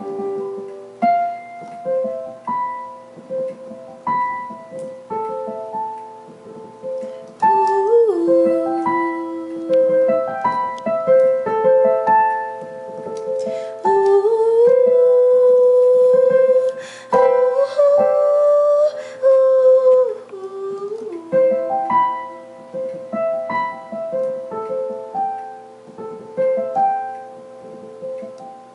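Digital piano played in a slow, freely improvised melody over chords. A woman's voice sings along in places, gliding between notes around 8 seconds in and again from about 14 to 21 seconds in.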